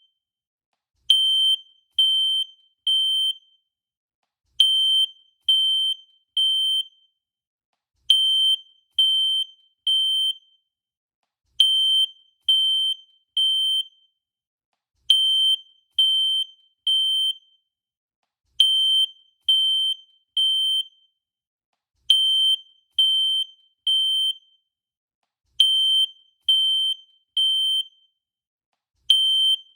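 Fire alarm sounding its evacuation signal: high-pitched beeps in groups of three, each group repeating about every three and a half seconds with a short silence between. This is the temporal-three pattern that signals a fire and means evacuate.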